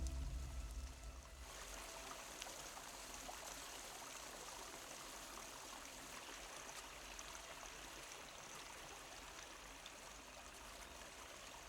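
Steady rush of running water, like a forest stream, as a film soundtrack ambience. Low sustained music tones fade out in the first second or so.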